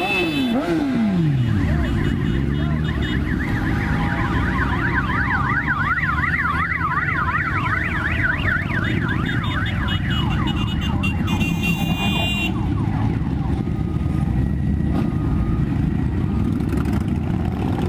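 A convoy of motorcycles riding past with a continuous engine rumble, while a siren sounds a fast yelp from about three seconds in until about ten seconds. A horn sounds briefly around eleven to twelve seconds.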